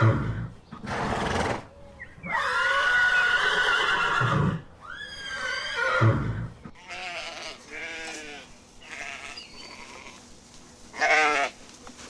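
Horse whinnying and snorting, with long pitched neighs and a noisy blast of breath. After about seven seconds it changes to quieter short, arching farm-animal calls, and one louder call comes near the end.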